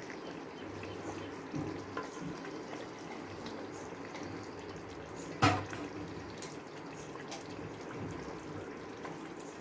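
Thick curry gravy being ladled from a metal pot into a glass bowl: liquid pouring and dripping, with a few light knocks of the ladle and one sharper clack about halfway through.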